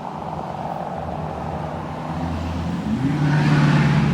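Engine of a passing motor vehicle, growing louder and revving up about three seconds in, as if driven to show off.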